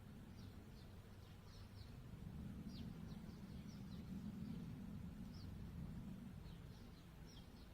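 Small birds chirping faintly: many short, high, downward-sliding chirps scattered throughout, over a low steady rumble that swells in the middle.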